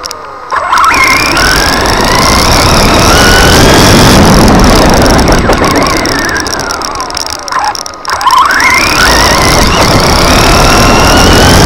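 Onboard sound of an RC car's 3300kv brushless motor and gearing whining, the pitch climbing sharply as it accelerates about half a second in and again about 8 s in, and falling as it slows in between. The whine rides over loud road and tyre noise and a rattle from the camera's loose buttons.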